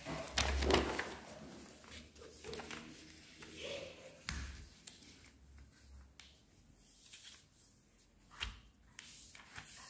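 A sheet of paper being folded in half and creased by hand on a tabletop: scattered soft rustles and taps, with a few sharper crackles.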